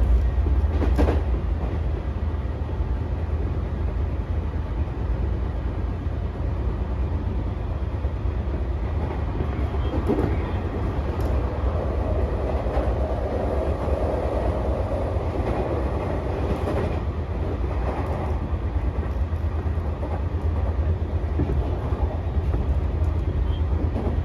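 Tokyu 3020 series electric train with a Mitsubishi full-SiC VVVF drive running at speed, heard from inside the car: a steady low rumble of wheels on rail with a few sharp clicks.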